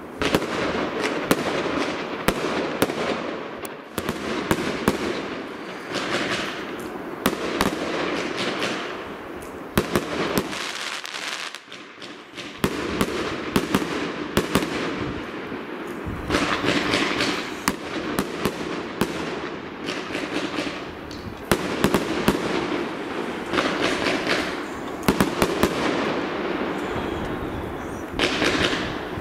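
Aerial fireworks bursting in quick succession: many sharp bangs over a continuous crackle. The display dies down briefly about eleven seconds in, then picks up again.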